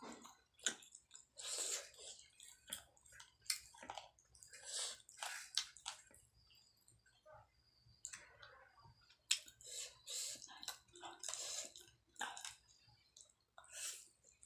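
Chewing and wet mouth smacking while eating saucy fried chicken lollipop, in irregular bursts with sharp wet clicks.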